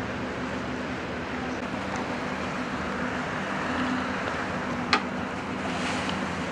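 Steady low hum of a boat's engine heard from on board, over a wash of wind and water noise. A single sharp click about five seconds in.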